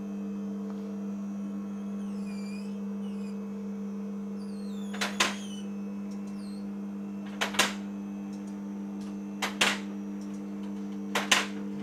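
Scissor car lift's pump motor running with a steady hum as it raises a car. Sharp clicks come every two seconds or so as it climbs.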